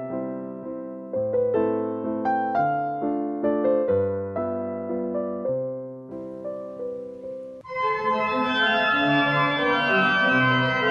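Piano music in single, fading notes, cut off abruptly about three-quarters of the way through and replaced by organ music playing held chords.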